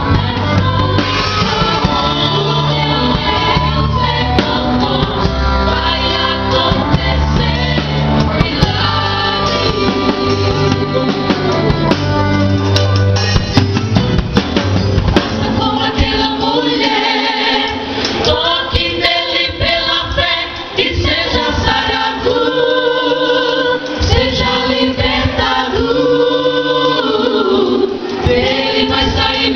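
Gospel worship song: voices singing over band accompaniment with a heavy bass line. About halfway through the bass and most of the instruments drop out, and the singing carries on almost alone.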